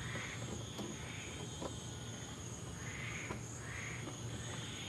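Night chorus of insects and frogs: a steady high trill with short repeated chirps, over a low steady hum.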